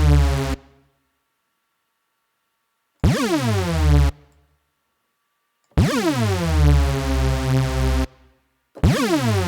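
Hoover sound from Ableton Live's Drift software synthesizer, played as a thick, detuned unison patch. Each note swoops steeply down in pitch at its start. There are a few separate notes with clean silent gaps between them and only a short reverb tail: one ends just after the start, one lasts about a second, a longer one lasts a couple of seconds, and another begins near the end.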